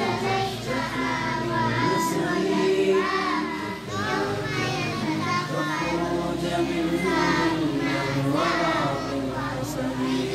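A group of young children singing together over backing music, with sustained low chords that change every couple of seconds.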